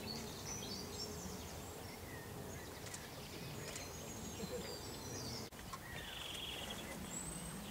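Small birds singing and calling over a steady low background rumble, with a buzzy trill about six seconds in.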